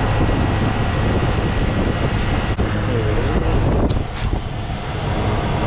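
Refrigeration condensing unit running: a steady, loud mechanical drone with a low hum from the compressor and condenser fan.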